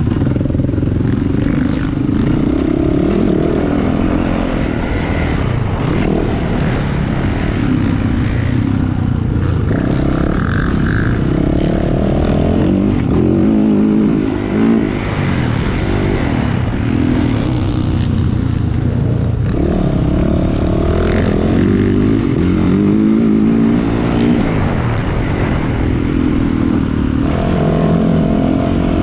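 Motocross bike engine, heard up close from the bike itself, revving up and falling back again and again as it is ridden hard round a dirt track, the pitch climbing through each gear and dropping at each shift or roll-off.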